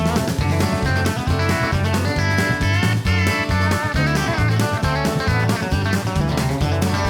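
Background music: guitar-led track with strummed and plucked guitar over a steady beat.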